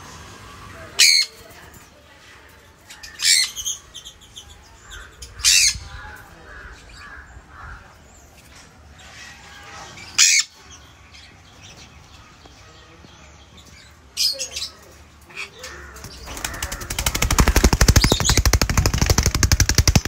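Sun conures screeching: five short, loud, shrill calls spaced a few seconds apart. Over the last few seconds a fast, rattling flutter builds up and becomes the loudest sound.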